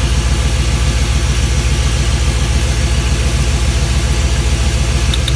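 GM LS-series V8 engine idling steadily, with an even low pulsing.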